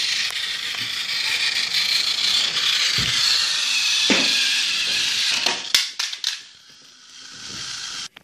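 Battery-powered toy train engine's motor and gears whirring steadily as it runs along plastic track, then a quick cluster of clattering knocks as it falls onto a tile floor, the motor whirring on more quietly afterwards.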